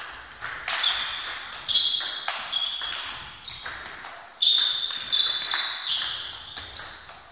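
Table tennis rally: the ball clicking sharply off bats and table about once a second, each hit ringing briefly.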